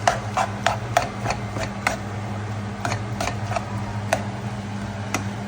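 Metal utensil chopping and mixing chicken kottu roti in a pan: sharp metallic clacks, about four a second for the first two seconds, then a few scattered strikes. A steady low hum runs underneath.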